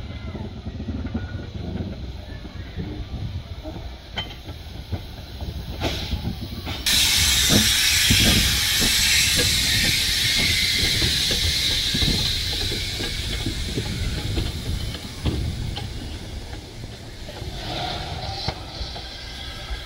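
Ffestiniog Railway Double Fairlie steam locomotive David Lloyd George moving slowly, with a low rumble and scattered knocks. About seven seconds in, a loud hiss of steam starts suddenly and slowly fades over the next several seconds.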